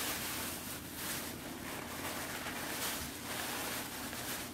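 Thin plastic produce bags crinkling and rustling in uneven bursts as bunches of spinach are handled in them.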